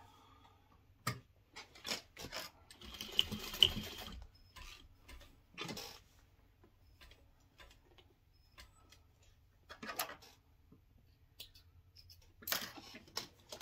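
Scattered light clicks and fabric rustling as cloth is handled and positioned under the presser foot of a Juki industrial sewing machine, with a short stretch of soft rattling about two and a half seconds in.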